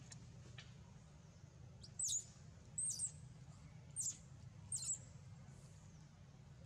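Four short, high-pitched chirping calls, each swooping up and down in pitch, about one a second, over a faint steady low hum.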